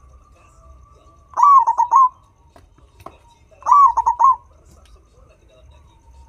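Turtledove cooing twice, each call a rising note followed by three quick coos, with a pause of about a second and a half between the calls.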